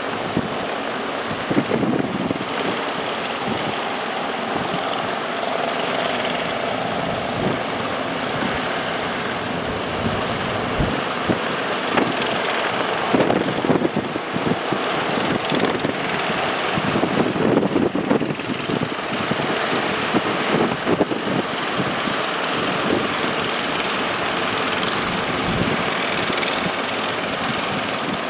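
Fishing boat engines running in a steady drone, mixed with gusts of strong wind buffeting the microphone.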